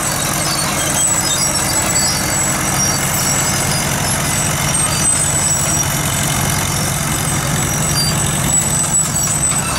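Crawler tractor engines running steadily.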